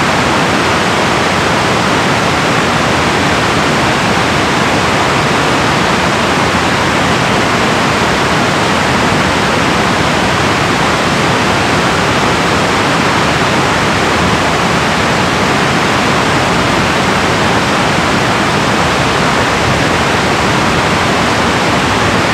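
Saint-Charles River water pouring over the Joseph-Samson dam, a loud, steady, unbroken rush.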